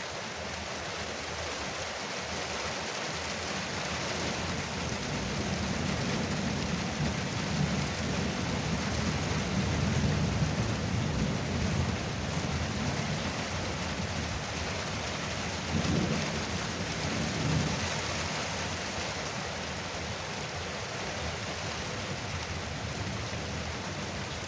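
Heavy rain drumming steadily on a veranda roof, with thunder rumbling low through the middle and two short rolls near the end.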